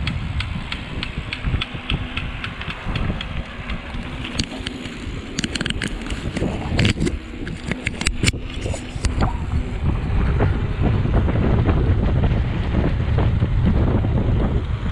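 Wind rushing over the microphone while riding. There is light ticking, about three ticks a second, for the first few seconds, and a cluster of sharper clicks and rattles around the middle.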